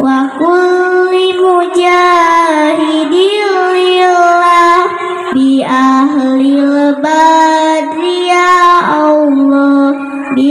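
A girl singing a shalawat solo into a microphone, amplified through PA loudspeakers, in long held notes with ornamented turns and short breaths between phrases.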